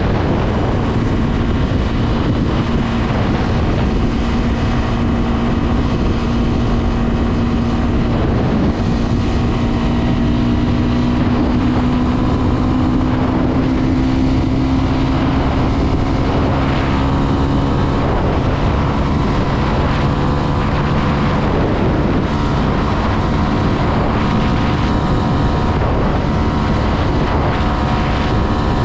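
Honda CB 250F Twister single-cylinder engine running under way, with wind rushing over the microphone. The engine note holds steady, then rises slowly in pitch for about ten seconds as the bike gathers speed.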